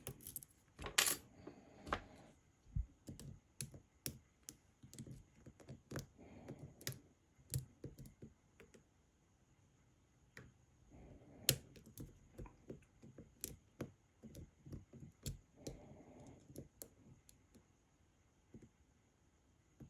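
Lock pick and tension wrench working the pins of a pin-tumbler lock with spool pins, picked out of a deep false set: a string of small, irregular metallic clicks and scrapes with short pauses.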